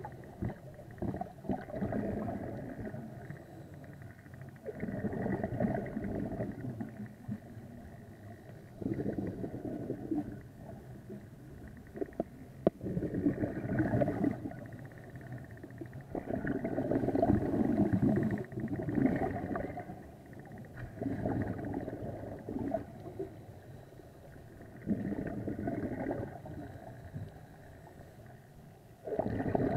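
Underwater scuba breathing: a diver's regulator releasing exhaled bubbles in gurgling rushes every few seconds, with quieter pauses between breaths.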